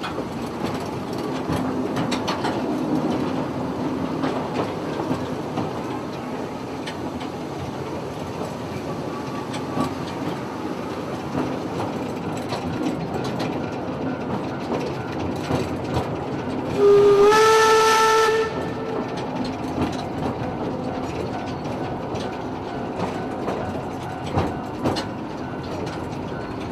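Small steam locomotive hauling open passenger cars, heard from aboard the train: steady running noise with clicks from the rail joints, and one whistle blast of about a second and a half, some seventeen seconds in, that steps slightly up in pitch just after it opens.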